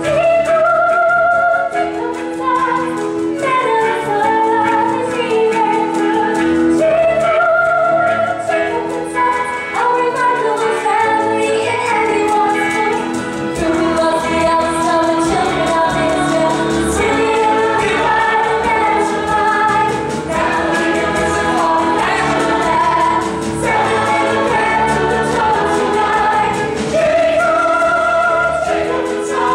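A stage-musical cast chorus singing together with a live pit band accompaniment, sustained sung melody lines over held chords.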